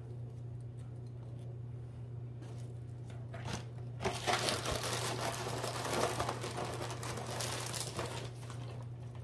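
Plastic packaging of vanilla wafer cookies crinkling as it is handled, starting about four seconds in and lasting about four seconds, over a steady low hum.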